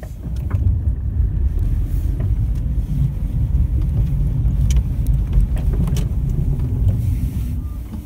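A car driving over a snowy, icy road, heard from inside the cabin: a loud, steady low rumble of tyres and road noise with a few light knocks from bumps.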